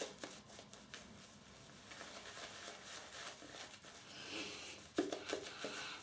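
Faint rubbing and handling sounds as a soft pre-shave soap is worked with a little water to activate it, with scattered light clicks and a sharper tap about five seconds in.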